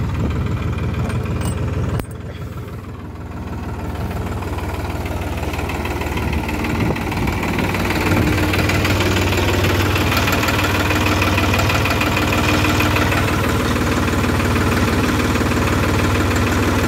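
Farm tractor's diesel engine running at idle. The sound drops suddenly about two seconds in, then climbs back over the next few seconds and holds steady and louder.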